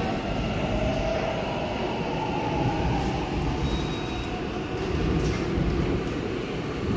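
Steady low rumble of a Seoul Subway Line 7 electric train moving away through the tunnel after leaving the station.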